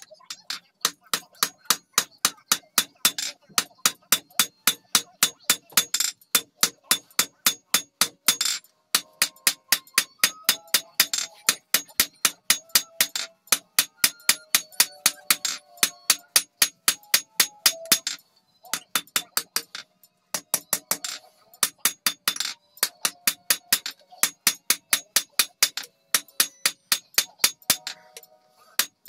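Hammer blows forging a red-hot bar on an anvil: sharp strikes at about three a second in long runs, broken by a few short pauses.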